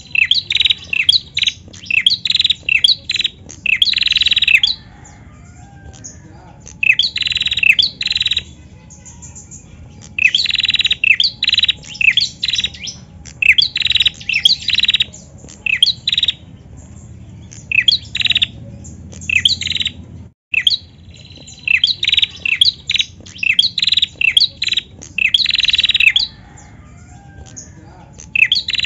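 A female prenjak calling vigorously: rapid runs of sharp, high chirps in bouts of one to a few seconds, repeated with short pauses.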